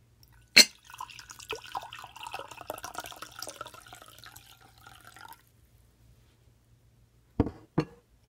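Water poured from a pitcher into a glass mug: a sharp clink as the pour begins, then about four seconds of splashing and gurgling whose pitch rises as the mug fills. Two knocks follow near the end.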